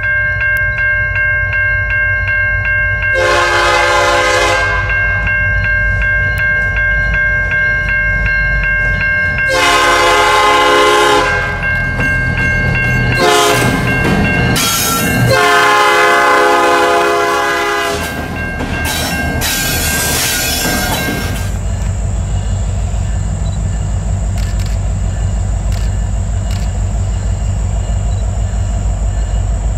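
A pair of CN SD70M-type diesel freight locomotives passing close with their engines rumbling, sounding the air horn in about five blasts: two long, a shorter one, then two longer ones. About two-thirds of the way through the horn stops and there is only the low rumble of the locomotives, with a steady thin high whine over it.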